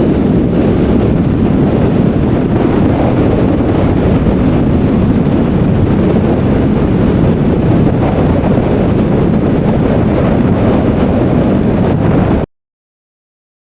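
Steady road and wind noise of a car being driven, a continuous low rush that cuts off abruptly to silence about twelve seconds in.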